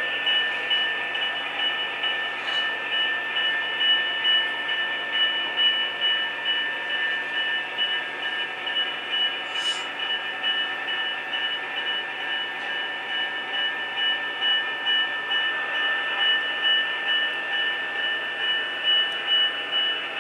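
HO-scale Proto 2000 RS-27 model locomotive's Quantum sound decoder playing an Alco diesel engine running, through the model's small onboard speaker, with a steady high whine and a pulsing engine beat.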